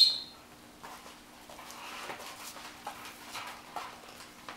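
A black puppy biting and tugging on a cloth bite rag over a hard floor: soft scuffs, rustles and light clicks of paws and rag. A short, high squeal right at the start is the loudest sound, and a faint steady hum runs underneath.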